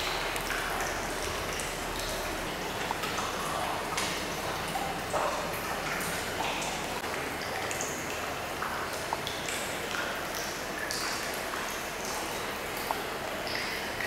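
Hot-spring water running and splashing into a tiled indoor bath, as a steady wash of water with irregular echoing drips and plinks.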